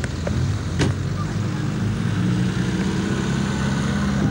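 Off-road vehicle engine running steadily, with a single sharp knock about a second in.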